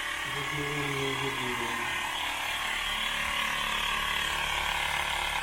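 A small electric motor appliance whirring steadily, then switched off abruptly at the end.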